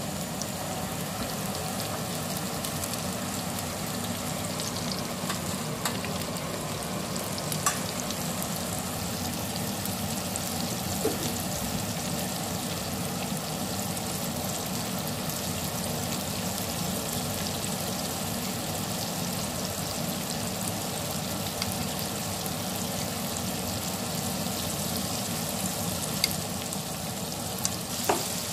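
Corn-flour-coated chicken drumsticks deep-frying in a pan of hot oil: a steady, dense sizzle and crackle. A few sharp clicks stand out above it, most clearly near the end.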